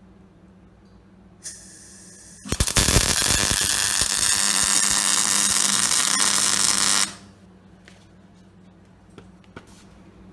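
Wire-feed MIG welder arc crackling steadily for about four and a half seconds as a weld is run on laser-cut metal parts, starting and cutting off suddenly. A fainter hiss comes on about a second before the arc strikes.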